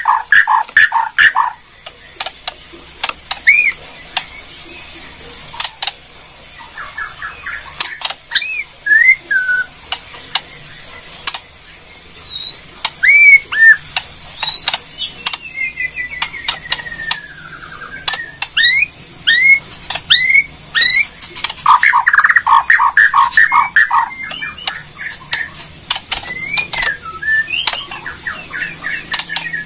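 Bornean white-rumped shama (murai Borneo) calling: rapid sharp clicks and crackles (the "kretekan" call) mixed with short upswept whistles. A long falling slurred note comes near the middle, and a fast run of repeated notes comes about three-quarters of the way through.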